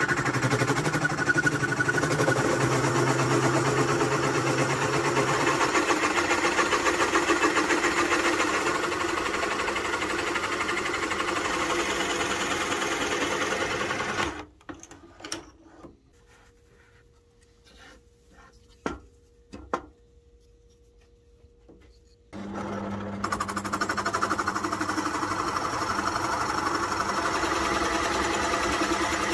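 Drill press running with a large Forstner bit boring into a wooden block, a steady motor hum under the noise of the bit cutting wood. About 14 seconds in it cuts off suddenly, leaving near silence with a few clicks for about eight seconds, then the drilling starts again.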